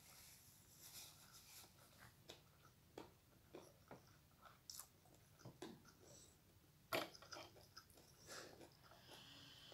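Faint mukbang eating sounds: a person chewing food close to the microphone, with irregular soft mouth clicks and smacks. The loudest smack comes about seven seconds in.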